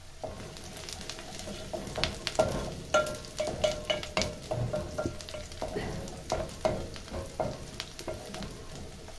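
Chopped onions sizzling in hot cooking oil in a metal pot, stirred with a wooden spoon that scrapes and knocks against the pot in quick, irregular strokes, loudest through the middle.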